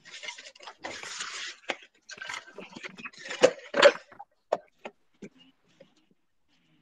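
Indistinct voices and household noises coming through students' open microphones on a video call: a burst of hiss about a second in, scattered clicks, and two louder short voice sounds a little past the middle.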